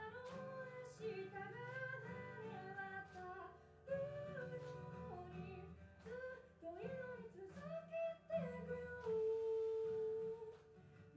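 A woman singing a slow ballad while strumming an acoustic guitar, her voice gliding between notes over the guitar chords; near the end she holds one long note.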